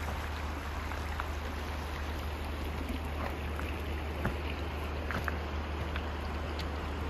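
Shallow mountain river running over a stony bed: a steady rushing of water, with a few faint short ticks over it.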